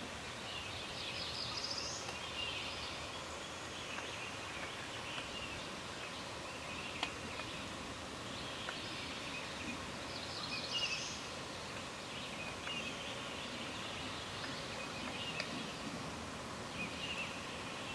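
Wild birds calling in spring woods, short high chirping phrases coming every few seconds over a steady outdoor background hiss.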